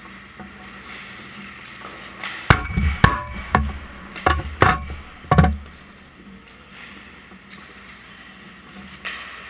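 A quick run of about eight sharp knocks and thuds in three seconds from hockey pucks and sticks striking, heard close to the camera at ice level, over the steady hum of an indoor rink.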